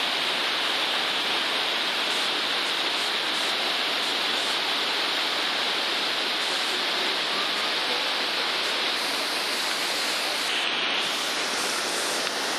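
Waterfall cascading down a rocky channel: a steady, unbroken rush of water.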